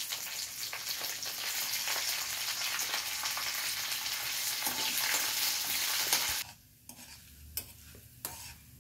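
Curry leaves, mustard seeds, dals and a dried red chili sizzling in hot oil in a steel kadai: the tempering for upma. The loud sizzle drops away suddenly about six seconds in, leaving a metal spatula clicking and scraping against the pan.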